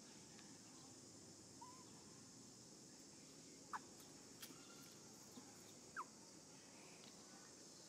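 Near silence: a faint steady high-pitched insect drone, broken by two short, sharp chirps a couple of seconds apart near the middle.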